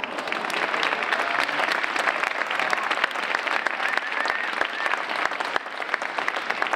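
Audience of schoolchildren applauding: dense clapping that starts suddenly and keeps up steadily, with a few voices mixed in.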